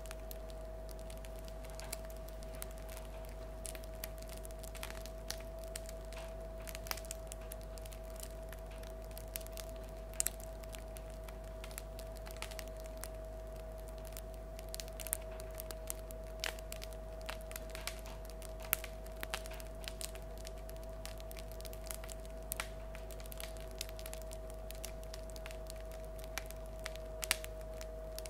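Crust of a loaf of bread crackling with sharp, irregular little clicks, a few at a time, as the bread 'sings' while it cools after baking. A steady low hum runs underneath.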